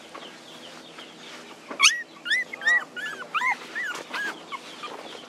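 Young puppies whimpering and crying, a quick run of short high-pitched whines that starts about two seconds in, crying for their absent mother.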